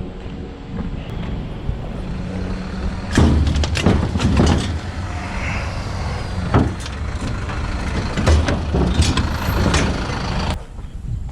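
Knocks and clanks of small scrap pieces being handled and loaded into a pickup truck bed, a cluster of them about three to four and a half seconds in and single ones later, over a low steady rumble.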